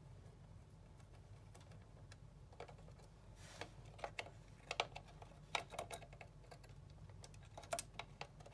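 Irregular light clicks and taps, singly and in small clusters, starting a couple of seconds in, over a faint low steady hum.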